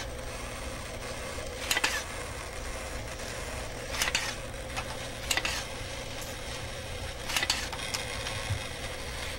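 Small electric gear motors of a robot whirring in short bursts, about four times, as it moves its head and body, over a steady electrical hum.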